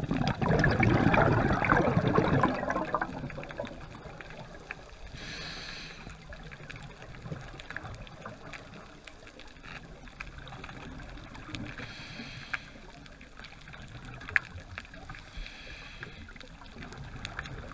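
Scuba regulator breathing underwater: a loud gush of exhaled bubbles for the first few seconds, then quieter, with short hissing inhalations about every six seconds. Faint clicks and crackles run throughout.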